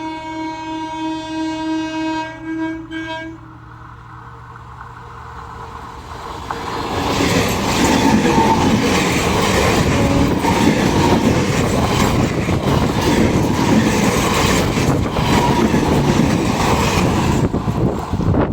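Train horn sounding one held, slightly pulsing note for about three seconds. A passing train follows, building up over a few seconds and then rushing by loud and close from about seven seconds in, its wheels clattering rhythmically over the rail joints.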